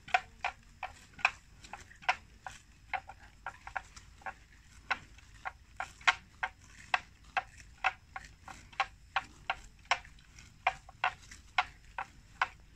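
Water buffalo grazing, tearing off mouthfuls of grass in a steady rhythm of short, crisp rips, about two or three a second.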